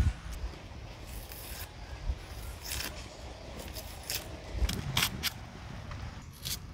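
Onion being cut with a blade: irregular crisp cuts and scrapes, a dozen or so scattered through.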